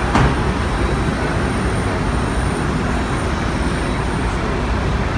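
Steady road-traffic noise, a continuous loud rumble, with a short knock just after the start.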